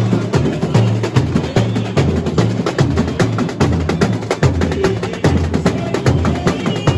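Samba school bateria playing samba: deep bass drums beat a steady rhythm under dense, rapid snare and small-drum clicks.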